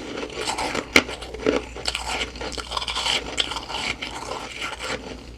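Humidifier frost crunching and crackling as it is chewed, a soft, powdery ice, with one sharp click about a second in.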